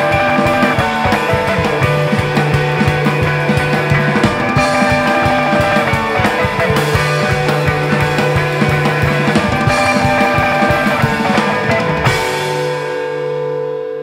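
Instrumental passage of a rock song, with a drum kit beating under held notes. About twelve seconds in the drums stop, and sustained, slowly pulsing notes ring on and fade.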